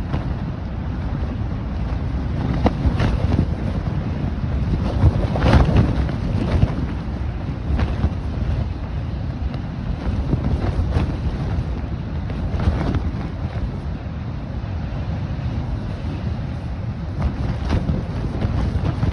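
Strong, gusting wind, like a train, buffeting a collapsed backpacking tent: a steady low rumble of wind on the microphone that swells in gusts, loudest about five seconds in, with frequent sharp slaps of the tent fabric.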